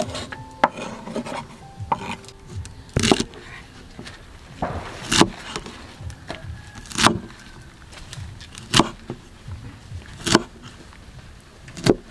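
Cleaver chopping a bundle of long string beans on a wooden chopping board: a sharp knock of the blade on the wood about every one and a half to two seconds, with lighter taps and scraping of the beans between chops.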